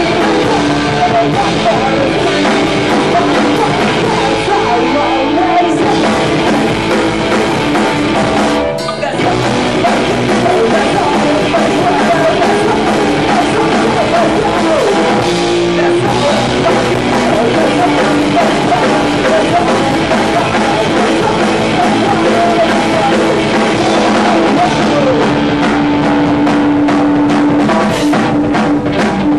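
Punk rock band playing live: distorted electric guitar and drum kit with sung vocals. The music drops out for a split second about nine seconds in, then comes back in.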